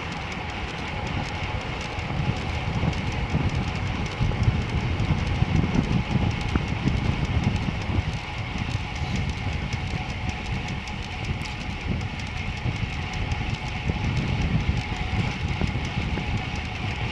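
Wind buffeting the microphone and rolling noise from a moving bicycle, a gusty low rumble with a faint steady whine over it.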